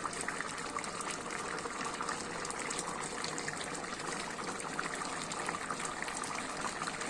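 Zirvak, the meat-and-vegetable broth base for plov, boiling in the pot: a steady bubbling with many small pops.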